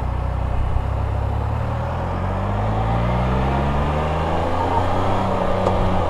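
Can-Am Spyder RT's engine accelerating under way, its note rising steadily in pitch for several seconds, then dropping off suddenly near the end as the rider shifts gear.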